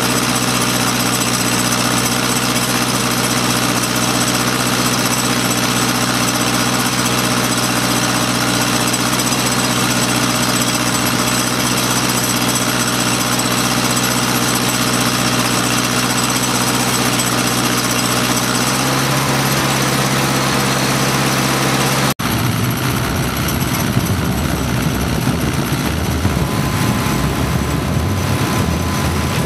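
Douglas DC-7B's Wright R-3350 radial engine being turned over on its starter for pre-oiling, with the spark plugs out of the bottom cylinders. It chugs steadily as air puffs out of those open cylinders. The sound shifts about 19 seconds in and turns rougher after a short break about 22 seconds in.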